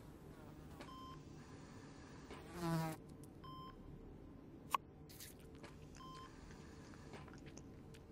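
A mosquito's whine swells loudly as it flies close to the microphone about two and a half seconds in. Under it a soft electronic beep, like a patient monitor, repeats about every two and a half seconds, and there is one sharp click a little before the five-second mark.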